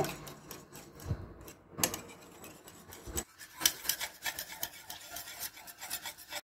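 Metal balloon whisk beating eggs, oil and yogurt in a glass bowl: wires clicking and scraping against the glass, irregular at first, then a quicker, steadier run of strokes, about five a second, in the second half.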